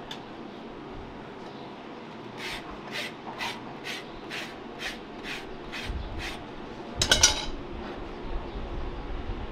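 A farrier's rasp filing a horse's hoof in about nine even strokes, two a second, followed about seven seconds in by a short, louder harsh sound.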